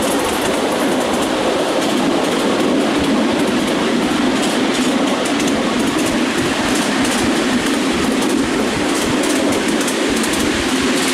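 Miniature railway train running along the track: a steady rumble of wheels on rails, with faint irregular clicks.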